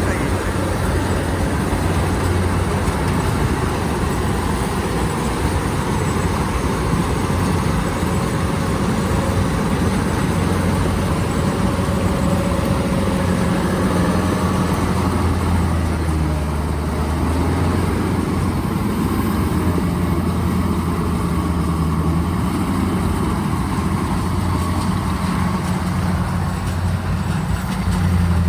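Kubota DC-93 rice combine harvester's diesel engine running steadily with an even, low drone.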